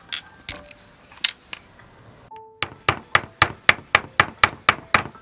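A hammer driving small nails through a strip of tin sheet into a wooden stick. A few scattered light clicks come first, then, about two and a half seconds in, a steady run of hammer blows, about four a second.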